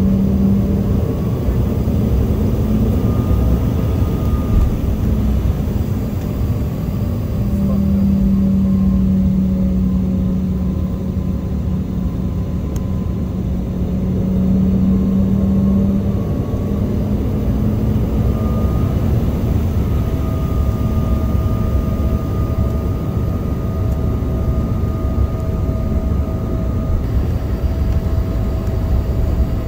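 Engine and cabin noise from inside a vehicle moving across an airport apron: a steady low rumble with an engine hum that swells and fades several times and shifts slightly in pitch.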